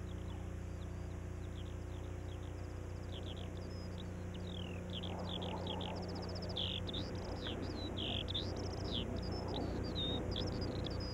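Small birds chirping in many short, quick, falling notes, sparse at first and growing busier after a few seconds, over a steady low hum.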